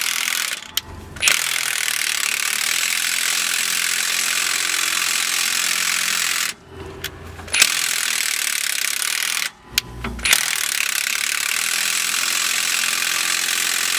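Cordless impact wrench hammering in four long runs with short pauses between, backing a 24 mm U-bolt nut off the rear axle. The nut comes off slowly and still has threads to go.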